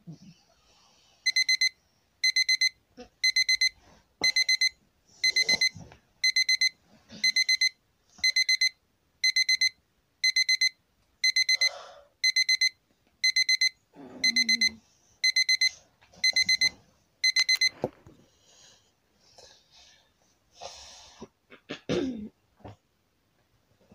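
Electronic alarm clock beeping in short groups of rapid high beeps, about one group a second, stopping about 18 seconds in. A boy yawns partway through, and the bedding rustles after the alarm stops.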